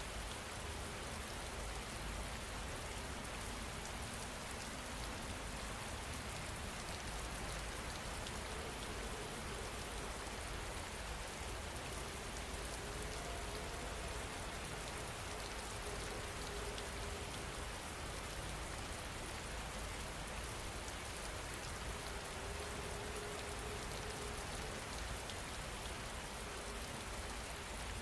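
Steady rain falling, an even hiss without a break, with a faint humming tone that comes and goes.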